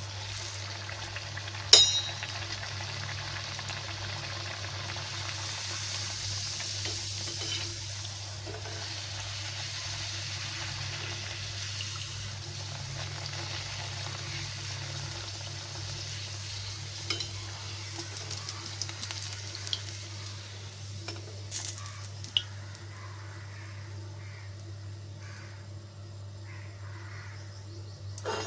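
A puri deep-frying in hot oil in a metal kadhai: steady sizzling, strongest over the first several seconds, then settling. A sharp knock about two seconds in is the loudest sound, and a few lighter knocks of the slotted spoon against the pan come later.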